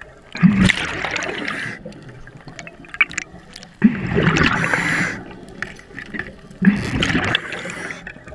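A scuba diver's exhaled breath bubbling out of the regulator underwater. There are three gurgling bursts, each starting sharply and lasting a second or so, about three seconds apart, in the rhythm of breathing.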